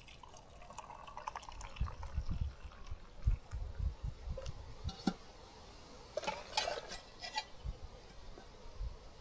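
Liquid being poured and dripping, most likely freshly brewed camp coffee going into a cup, with scattered low thumps and a click from handling.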